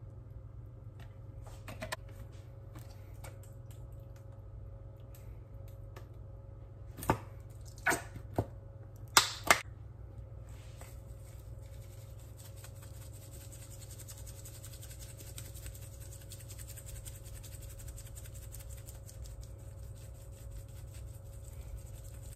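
A few sharp clicks and knocks of bottles and caps being handled about seven to nine seconds in, then a faint, steady rattling hiss as a seasoning shaker is shaken over chicken in a bowl, over a low steady hum.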